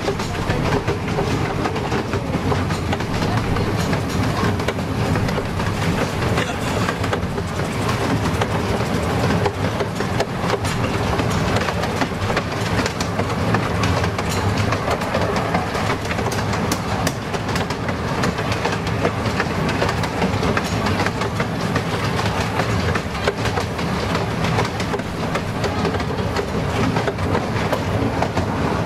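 A miniature steam railway train running along the track, heard from a carriage: a steady clatter and rattle, with the wheels clicking over the rail joints all the way through.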